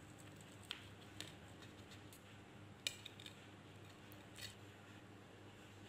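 Faint clicks and scrapes of a table knife against a ceramic plate as it cuts through an omelette: a handful of short sharp taps, the clearest about three seconds in.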